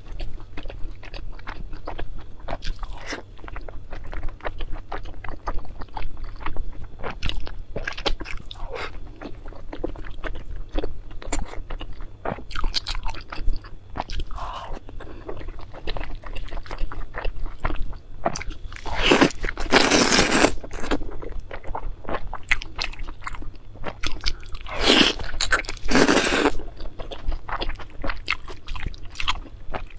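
Close-miked mouth sounds of a person eating dumplings: fast, wet clicks of chewing and biting, with two louder stretches of a second or two each past the middle.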